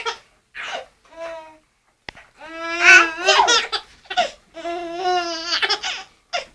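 Baby of about five months laughing in long, shaky, high-pitched bursts, the strongest starting about two and a half seconds in, after a few short squeals. He is laughing at his sister's pretend sneezing.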